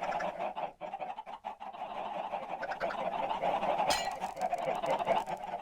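A crowd of chickens calling all at once, a dense, continuous squawking clamour, with one sharp click about four seconds in.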